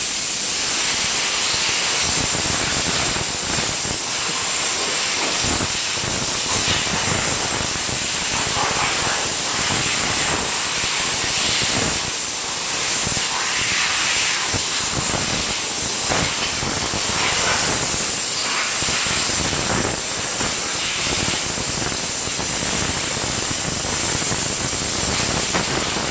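High-pressure water spray hissing steadily as a pressure washer jet cleans a car's engine bay, with a constant thin high whine over the spray.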